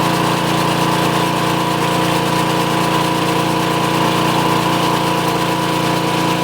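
A small engine running steadily at a constant speed, an even hum with no change in pitch.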